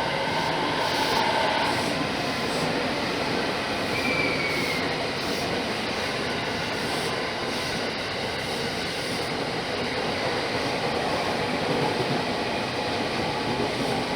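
Electric commuter train running on the rails, a steady noise of wheels and running gear. A brief faint wheel squeal comes about four seconds in.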